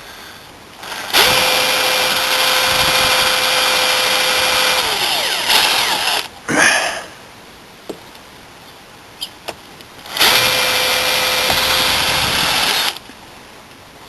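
Power drill drilling out the rivets of a motorhome door hinge, in two runs. The first lasts about five seconds, with a steady whine that winds down at its end. The second lasts about three seconds.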